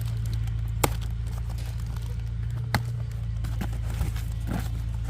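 A steady low mechanical hum, like a running motor, with a few sharp clicks or knocks over it.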